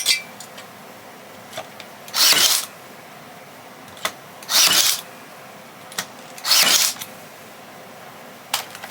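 Bauer 20V brushless cordless 18-gauge narrow crown stapler firing three staples into 5/8 plywood, each shot a short burst about two seconds apart. A small click comes shortly before each shot.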